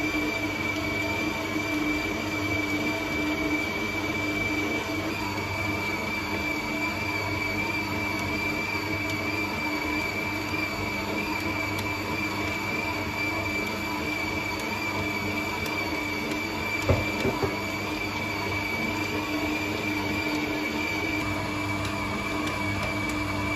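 Bosch Optimum stand mixer motor running steadily with a high whine while its hook kneads whole-wheat bread dough. A couple of short knocks come about two-thirds of the way through.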